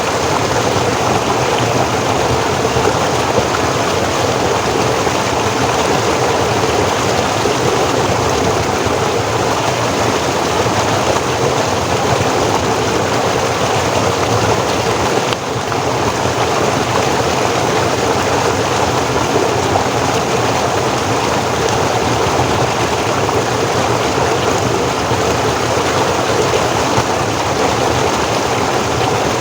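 Forest stream flowing, a steady rushing and splashing of water over rocks, with a brief dip in loudness about halfway through.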